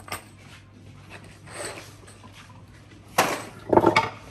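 Hand tools and wire being handled on a tabletop: a few short knocks and clatters, the loudest pair near the end.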